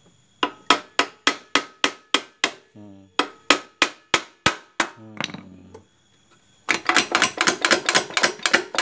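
Hammer tapping on the scooter's CVT cover to knock it loose: evenly spaced blows at about four a second, a short pause about five seconds in, then a fast run of blows near the end.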